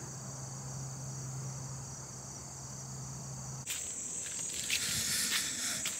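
Crickets and other insects trilling in a steady, high chorus, with a steady low hum underneath. A little past halfway the chorus changes abruptly and scattered rustles and clicks join it.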